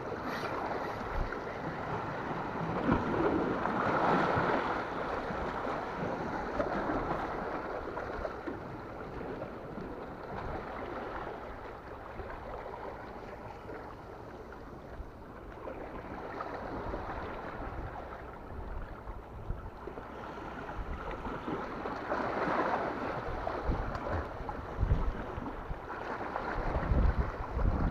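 Sea waves washing against rocks, swelling twice, with wind buffeting the microphone in low thumps near the end.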